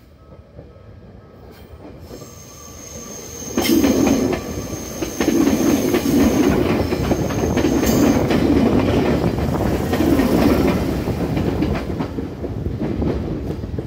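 Izukyu 8000 series electric train (ex-Tokyu 8000 series) passing close by: it builds up and turns loud about three and a half seconds in, then runs on with dense clattering of the wheels over the rails and heavier rhythmic thumps every couple of seconds. A thin, high, steady whine sounds through the first half.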